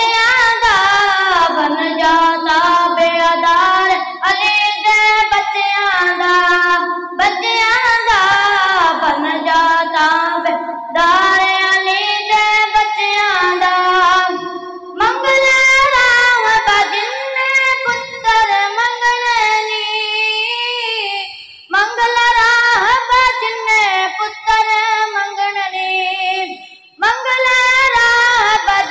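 A boy singing a Punjabi naat solo into a microphone, his high voice carrying long melodic phrases separated by short breaths.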